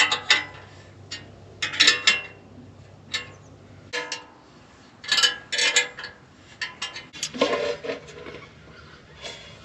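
Metal clinking and clanking: hand tools and hardware knocking against metal in about a dozen irregular sharp strikes, each with a short ring.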